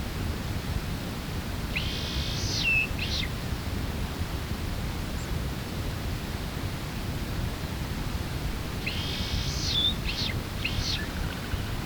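A small songbird singing two short song phrases several seconds apart, each a quick run of high notes ending in a hooked note, followed by two or three short separate notes. Steady low rumbling background noise throughout.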